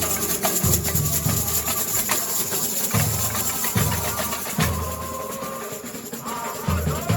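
Samba school bateria (drum section) playing: deep surdo bass drums beat out a repeating pattern under dense, fast rattling and ticking from the higher percussion. The bass drums ease off for a moment near the middle and come back in near the end.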